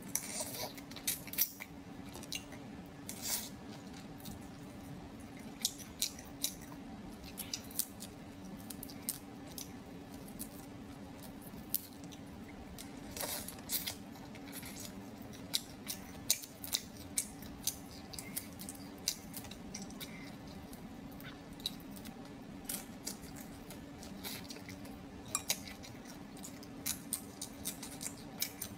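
Crunching and crackling of cooked shell-on prawns being peeled and bitten, with chewing; many short, sharp crackles come irregularly throughout.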